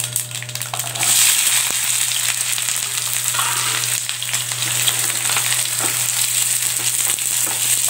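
Chopped shallots tipped into hot sesame oil in a metal kadai, the frying sizzle jumping louder about a second in and then holding steady, with a wooden spatula stirring and scraping the onions in the pan.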